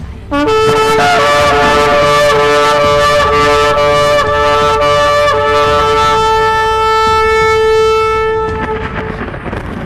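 A loud trumpet blast: several held brass notes sounding together, starting suddenly just after the start and fading out near the end.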